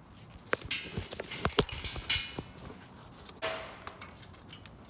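Handling noises from work on a small generator engine's ignition coil and flywheel: a quick run of sharp clicks and knocks in the first two seconds, with short rustles, then another rustle past the middle.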